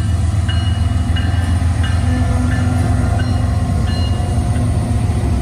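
Norfolk Southern freight train rumbling steadily past a grade crossing, with a bell dinging over and over.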